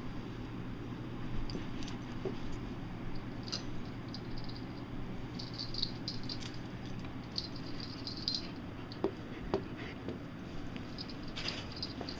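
Scuffling play between a black Labrador and a bare-eyed cockatoo: soft rustles and small taps, with brief light jingles from the dog's collar several times.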